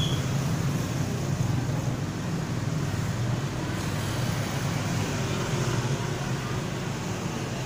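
Steady low rumbling background noise, with one brief high chirp at the very start.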